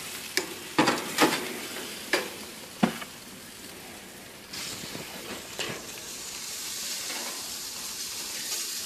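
Metal tongs clicking and scraping on a hot gas-grill grate, several sharp clicks in the first three seconds, as grilled pineapple rings stuck to the grate are pried loose. A steady sizzling hiss from the grill runs underneath.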